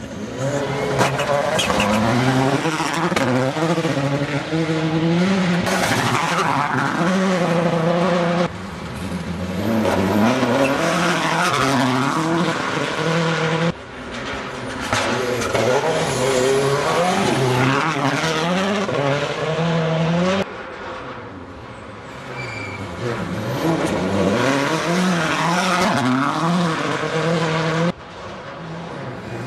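World Rally Cars' turbocharged four-cylinder engines revving hard on a gravel stage, pitch climbing and dropping again and again through gear changes, with gravel and tyre noise as each car slides past. Several cars go by one after another, the sound jumping abruptly between them.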